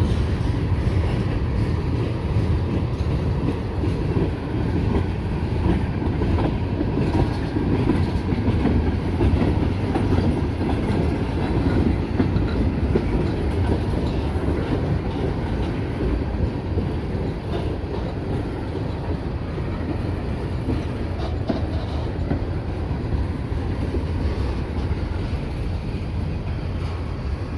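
Freight train rolling past, with a steady low rumble and clickety-clack of wheels over the rail joints, easing off slightly toward the end.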